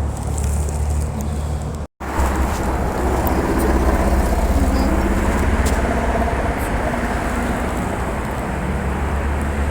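Steady low rumble of road traffic and wind, broken by a brief cut about two seconds in.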